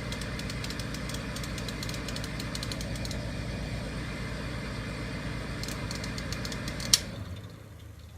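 Old refrigerator running with a steady low mechanical hum and faint scattered ticking. About seven seconds in comes a sharp click and the hum drops away: the defrost timer being switched into defrost mode, which shuts off the cooling.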